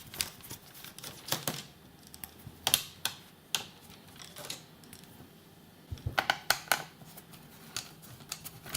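Irregular light clicks and taps of a screwdriver and small screws against the plastic underside of a laptop as its screws are removed, with a quick flurry of clicks about six seconds in.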